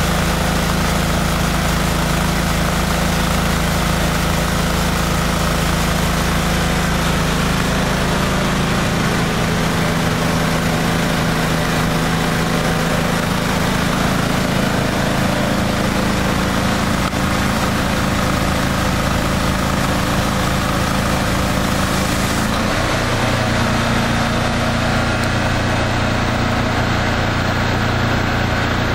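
Engine of a truck-mounted hot-water pressure washer running steadily. Its low pitch shifts about 9 seconds in and again about 22 seconds in.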